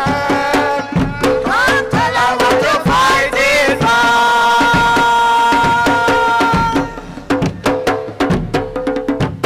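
Live music on hand drums, with steady drum strokes under a gliding melody line that settles into one long held note in the middle.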